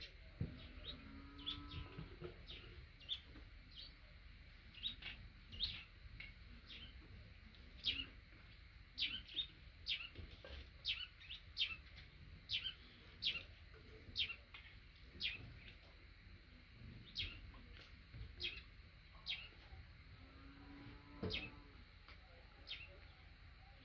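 A small bird chirping over and over, short sharp high notes about one or two a second. Twice a faint lower-pitched call is heard, once near the start and once near the end.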